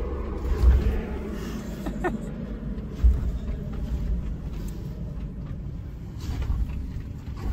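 Low rumble heard inside a Mercedes-Benz G-Class cabin as it crawls down a rocky stone trail, with two heavy thumps, about a second in and about three seconds in, and a brief squeak near two seconds.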